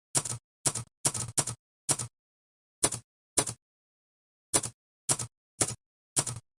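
Vintage typewriter keys striking, about eleven separate keystrokes at an uneven, unhurried pace, with a longer pause of over a second near the middle.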